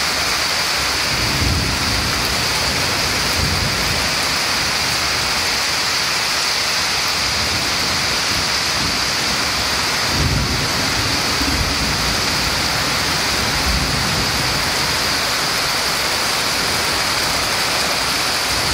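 Heavy tropical rain pouring steadily, with low rumbles swelling a few times.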